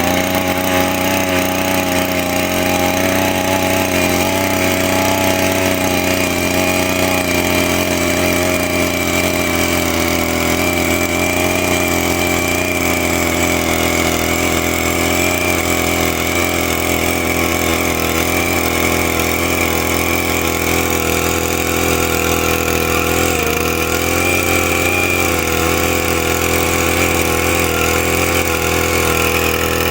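Small engine of a motorised biopore earth auger running steadily while drilling into soil, its pitch holding nearly constant.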